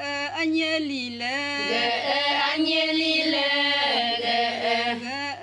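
Voices chanting a Ponung folk song of the Adi tribe, with held notes that glide between pitches.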